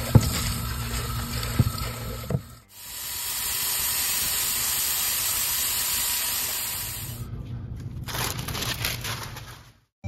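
Tap water running into a plastic paint-sprayer cup, with a few knocks, then a Wagner handheld electric paint sprayer running steadily for about four seconds as it sprays clean water through to flush out the paint, followed by more splashing water.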